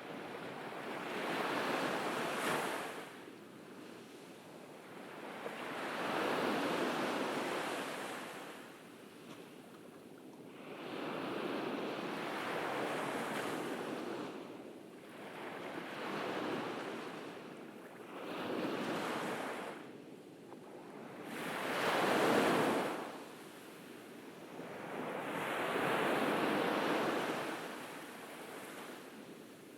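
Ocean waves washing onto a beach in a slow, even rhythm, each wave swelling and fading over a few seconds, about seven in all.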